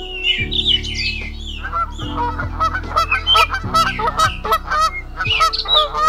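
Birds calling and chirping over background music of slow, held low chords. From about two seconds in, a fast run of repeated lower calls joins the high chirps and becomes the loudest part.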